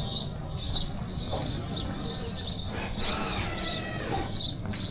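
Small birds chirping repeatedly, short high calls every half second or so, over a low steady background rumble.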